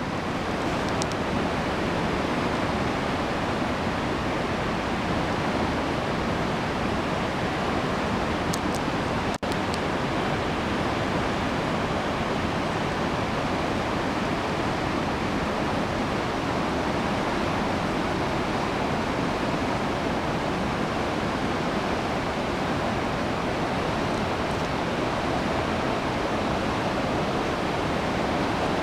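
Steady rush of a waterfall's falling water, with one very brief dropout about nine seconds in.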